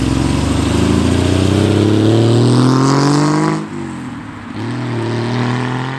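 A car engine accelerating, its note rising steadily for about three and a half seconds, then dropping back and holding a steadier lower note until it cuts off suddenly at the end.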